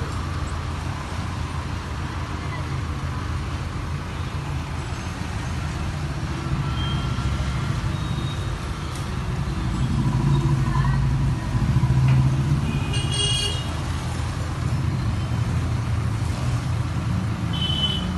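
Steady rush of a gas-welding torch flame as a scooter's exhaust silencer is welded, over a low rumble of street traffic. A vehicle horn toots briefly about 13 seconds in and again near the end.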